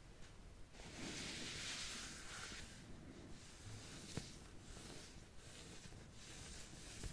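Soft scratching strokes, the longest about a second in, then fainter ones, with a small click a little after four seconds.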